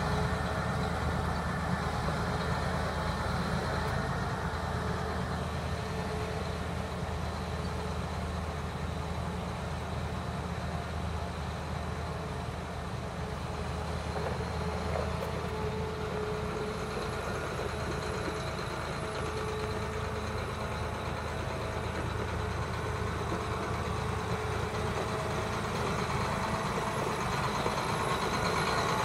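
2011 John Deere 8310R tractor's 9.0-litre diesel engine running steadily as the tractor drives around, a little quieter midway as it pulls away and louder again near the end as it comes back.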